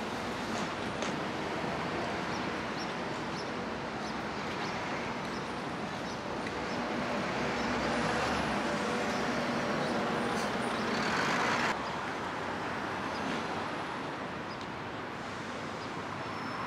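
Busy city street traffic: a steady wash of engines and tyres. It swells for several seconds while a city bus passes close by, then drops suddenly.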